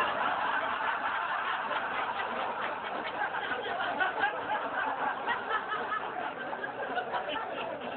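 Audience laughing together at a comedian's punchline: the laughter breaks out all at once and carries on steadily, easing a little near the end.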